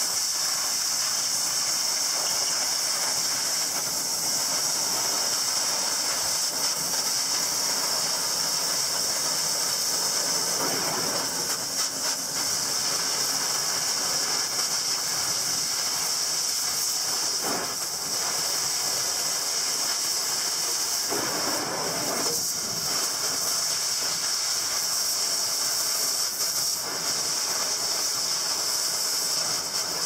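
Cutting torch hissing steadily as it burns out the steel center of a sprayer wheel rim.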